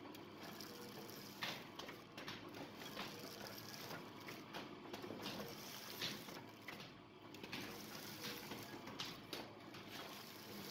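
Salt packing machine running, film drawn through its knurled sealing rollers: a steady mechanical hum with irregular sharp clicks.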